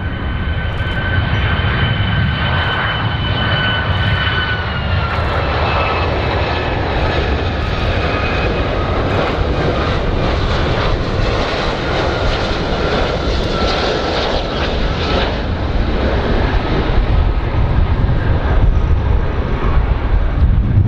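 Boeing 757 jet airliner passing low on landing approach: a steady roar of its turbofan engines with a high whine. The whine drops slightly in pitch about five seconds in and fades out in the second half, leaving a low rumble.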